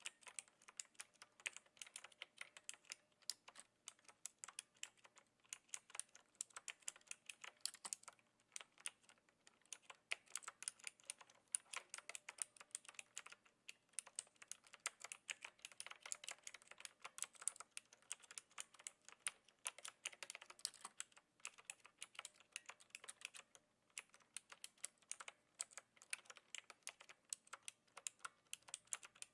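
Steady typing on a Knewkey Rymek typewriter-style mechanical keyboard with clicky blue switches: fast runs of sharp key clicks broken by a few brief pauses.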